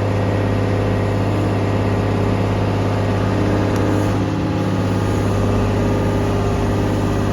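Case 125B excavator's diesel engine running steadily.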